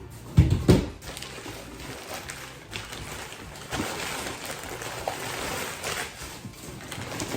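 A couple of heavy knocks less than a second in, then a longer stretch of rustling and crinkling as the last piece is unwrapped from its packing.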